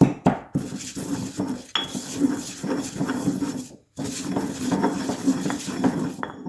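Pestle grinding and knocking in a mortar, crushing spices and mint leaves: a busy, irregular run of small clicks and scrapes, with a short break about four seconds in.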